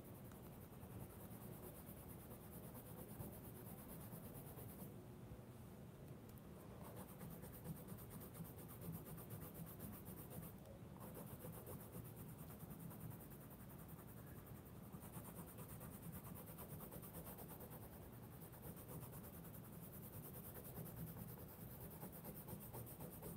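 Faint, steady scratching of a green Navneet Youva coloured pencil worked hard against thick sketchbook paper: heavy-pressure layering that fills the paper's tooth with pigment.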